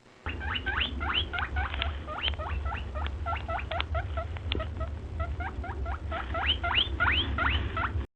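A small pet animal squeaking rapidly and repeatedly, several short squeaks a second, each rising sharply in pitch, over a steady low hum; it cuts off suddenly near the end.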